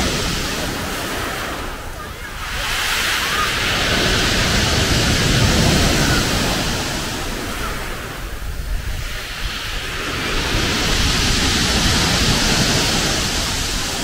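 Sea waves washing onto a pebble beach, the surf swelling and fading about every six seconds.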